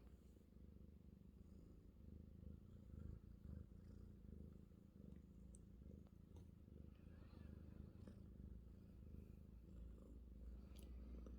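Russian Blue cat purring steadily and faintly, a low even rumble.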